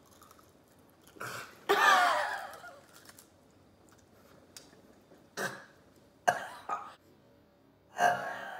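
A person's wordless vocal reactions: a long, wavering groan about two seconds in, then several short throaty bursts like coughs or throat clearing.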